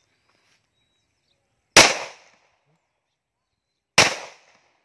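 Two pistol shots about two seconds apart, each followed by a short echo that fades within half a second.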